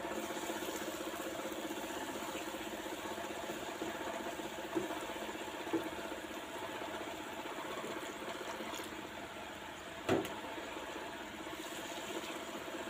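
Wooden spoon stirring onions, tomatoes and green chillies frying in oil in a nonstick wok, over a steady mechanical hum. The spoon knocks against the pan three times, the loudest about ten seconds in.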